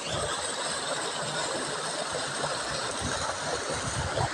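Steady rushing noise of a flowing river, with irregular low thumps.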